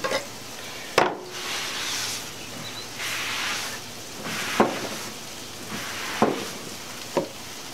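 Paper towel wiping down a wooden cutting board: several rubbing strokes, with four sharp knocks on the wood.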